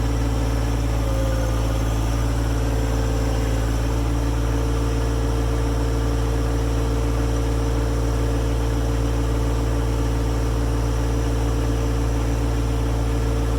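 John Deere 1025R subcompact tractor's three-cylinder diesel engine running at a steady, unchanging speed.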